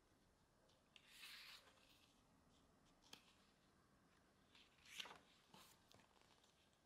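Quiet paper handling of a small booklet with a kraft-card cover: a swish as the cover is opened about a second in, a small click, then a page swishing over about five seconds in.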